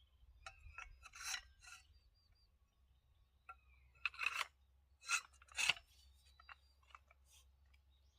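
Steel pipe support rods of a welded firewood sawhorse being slid and fitted into their sockets: metal scraping and rubbing against metal in several separate strokes, with faint ringing. The loudest strokes come about four seconds in and again between five and six seconds.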